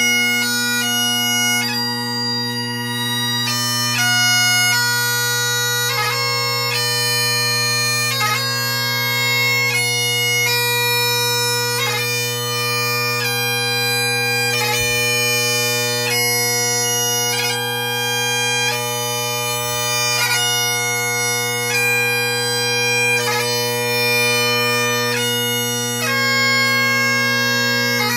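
Great Highland bagpipe playing a slow piobaireachd. The drones hold one steady bass chord underneath. The chanter plays long held melody notes that change every half second to two seconds, each change marked by a quick grace-note flourish.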